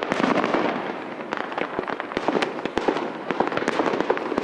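Fireworks display: many aerial shells bursting, a rapid, irregular run of bangs over a continuous wash of noise.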